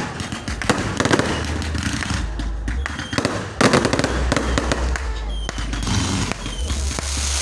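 Fireworks going off in a dense, continuous string of bangs and crackles, with a louder burst about three and a half seconds in.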